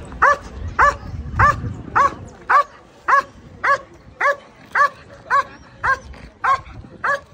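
Belgian Malinois police dog barking on the leash at a decoy in a guard exercise: short, evenly spaced barks, about two a second.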